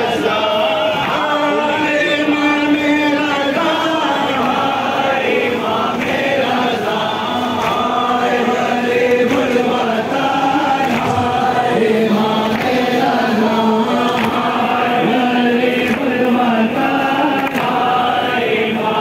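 A large crowd of men chanting a melodic lament together, many voices in unison with long held notes, as in a Muharram procession.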